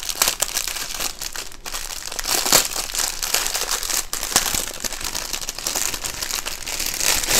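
Clear plastic packaging bag crinkling as hands turn and handle a packet of diamond painting drills. The crackle runs on throughout, with louder crinkles about two and a half seconds in and near the end.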